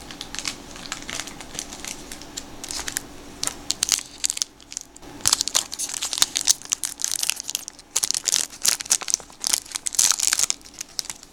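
Foil-lined wrapper of a 1992 Donruss baseball card pack being torn open by hand, crinkling and crackling. The handling is light and sparse at first, then the crinkling and tearing get louder and denser from about five seconds in.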